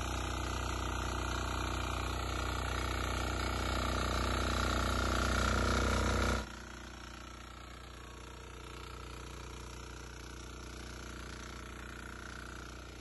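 Diesel power tiller with a centre-mounted rotary running under load, its engine putting out a steady drone while the rotary blades dig into hard, untilled rice-stubble soil. The sound builds a little for about six seconds, then drops suddenly and carries on quieter.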